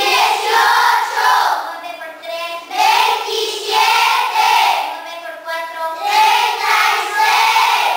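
A class of schoolchildren chanting in unison in Spanish, sing-song phrases of about a second each with short breaks between them: the whole class reciting the multiplication tables aloud.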